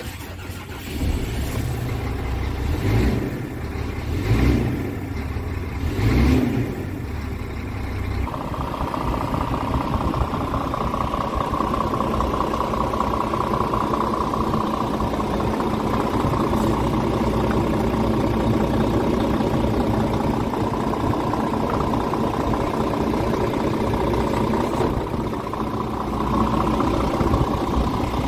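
Scania R truck's diesel engine running: a few brief surges in engine speed in the first seven seconds or so, then a steady idle with a constant whine over it.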